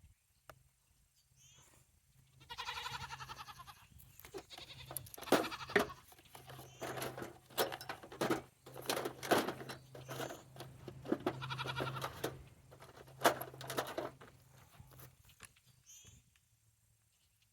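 Livestock bleating a few times, the first a long wavering bleat about two and a half seconds in. Sharp clicks and knocks, some loud, come repeatedly through the middle.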